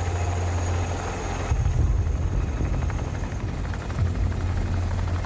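Tigre attack helicopter in flight: steady rotor and engine noise with a deep rumble and a thin, high steady whine, the texture shifting slightly about a second and a half in.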